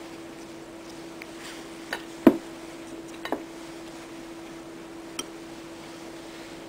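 A few sharp clicks and knocks of kitchenware being handled, four in all, the loudest a little over two seconds in, over a steady low hum.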